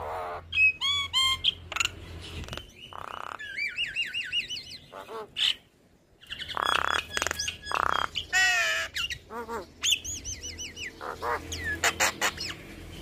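Javan myna chattering and singing: a fast, varied run of whistled glides, rising and falling notes and harsh squawks, broken by one brief pause about six seconds in.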